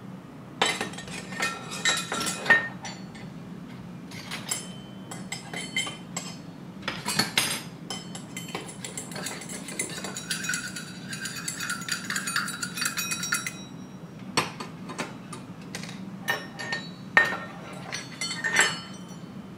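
Small stainless steel toy pots, lids and bowls clinking and clattering as they are picked up and set down, in irregular knocks. About halfway through comes a longer stretch of continuous ringing clatter.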